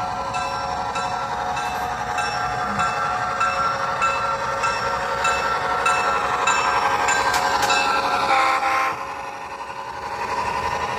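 Diesel locomotive horn held in one long chord, with a bell ringing steadily under it a little under twice a second. Both stop a little past eight seconds in, leaving the quieter running sound of the passing train.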